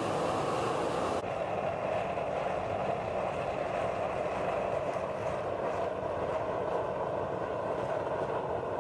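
Homemade waste cooking oil and machine oil stove burning hard with air blown in by a small electric fan: a steady rushing flame noise. About a second in, the higher hiss cuts off abruptly and the lower rush goes on.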